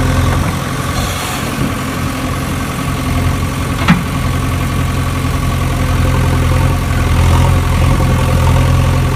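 Steady low engine drone, like a vehicle idling, with one sharp knock about four seconds in.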